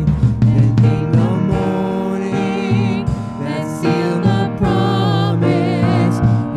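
Live worship band playing a gospel song: a woman and a man sing into microphones with wavering, held notes over grand piano chords and a Pearl drum kit keeping the beat.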